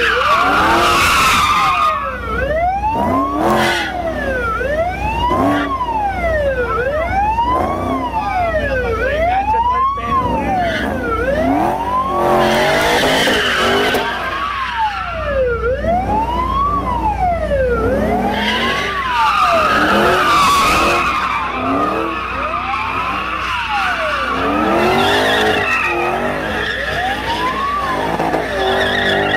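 A police siren wailing, its pitch sweeping up and down about every two seconds, on a Ford Mustang drifting. Under it the tyres screech and the engine revs, swelling in bursts several times.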